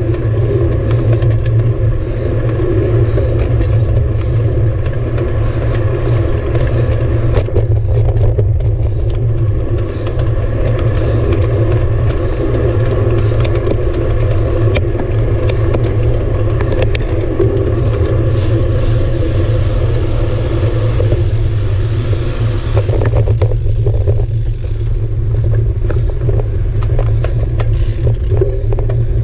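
Steady low rumble of wind and road noise from a road bicycle being ridden, picked up by a handlebar-mounted camera, with faint scattered ticks and rattles.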